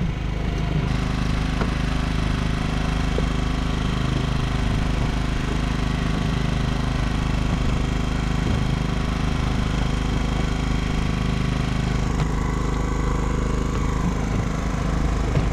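An engine aboard a small fishing boat running steadily at an even, low drone.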